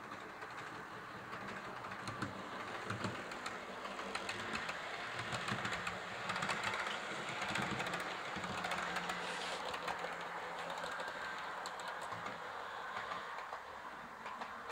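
H0-scale model Tangara double-deck electric multiple unit running along the track. Its wheels make a rapid clicking over the rail joints with a light running rattle, getting louder as it passes close by about halfway through and easing off near the end.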